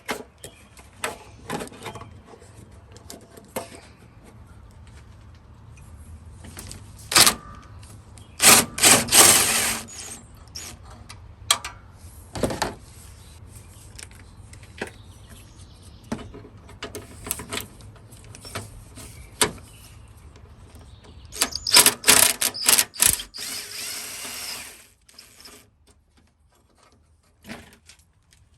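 Cordless power drill driving a 10 mm socket on a long extension, spinning out the bolts in a few short bursts, the longest near the middle and near the end, with clicks and knocks of tool handling between them.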